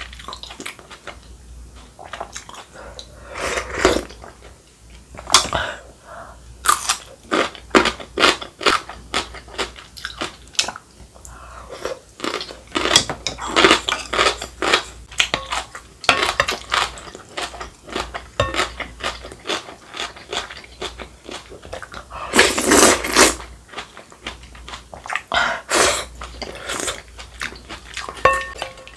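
Close-miked eating: wet chewing and smacking of rice cake and dumpling soup, with a couple of longer slurps of broth from the spoon, about four seconds in and near the 23-second mark.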